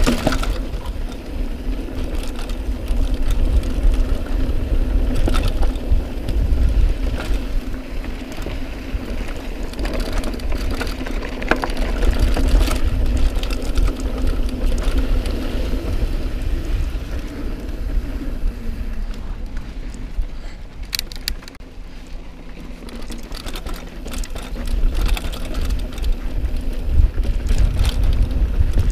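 Mountain bike riding dirt singletrack: tyres rumbling over the trail and wind on a helmet- or bike-mounted action camera, with a steady mechanical buzz and clicks and rattles from the bike over bumps. The buzz and fast ticking fit the rear freehub spinning while coasting.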